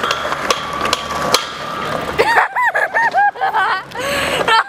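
Skateboard wheels rolling over paving, with a few sharp clicks at the slab joints. From about halfway, a run of short, high squeals that each rise and fall, about three a second, come in over it.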